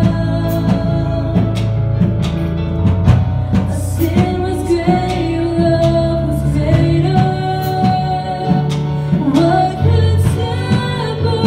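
Live contemporary worship song: a woman singing lead over electric keyboard, with a drum kit keeping the beat.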